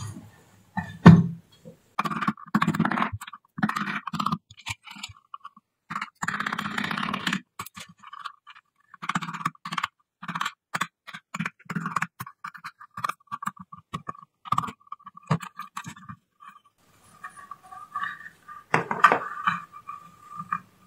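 Scraping and picking at hardened hot glue on a chipboard panel with a small metal tool and fingers, amid irregular clicks and knocks from handling the panel.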